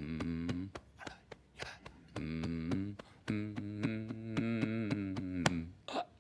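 A man's low, steady humming chant in long held notes, with sharp thumps or clicks at a regular beat through and between the notes.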